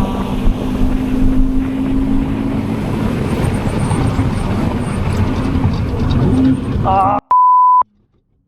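Scion FR-S flat-four engine running on track with tyre and road noise inside the cabin. About seven seconds in the sound cuts out and a single short steady beep sounds, followed by silence.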